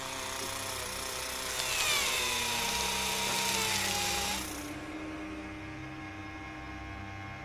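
Whirring, drill-like machine sound effect for a rover's robotic-arm tool working on rock: a loud hiss with a whine that slowly falls in pitch, easing about halfway through into a quieter steady hum.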